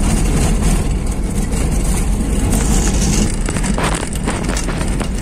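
Car driving on a bumpy dirt road, heard from inside the cabin: the engine runs steadily under the noise of the tyres on the dirt, with the body shaking and knocking over the bumps.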